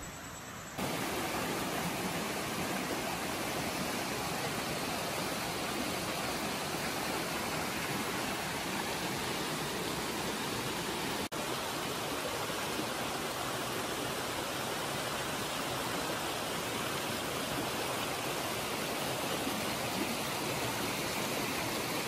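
Shallow rocky stream rushing steadily over stones, an even wash of running water. It cuts in suddenly under a second in and breaks off for a moment about halfway through.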